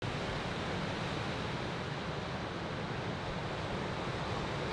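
Steady rushing wash of breaking ocean surf, with no single wave crash standing out.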